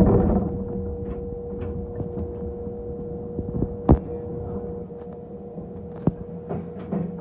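Electric commuter train pulling away from a station, heard from the driver's cab: a steady hum from the running gear, with a rush of noise right at the start and two sharp clacks of the wheels on the track, about four and six seconds in.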